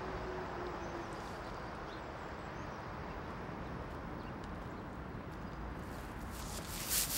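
Steady hissing noise, even and unbroken, with a short louder burst near the end.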